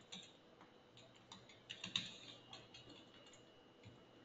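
Faint computer keyboard typing: a handful of scattered keystrokes, the loudest about two seconds in.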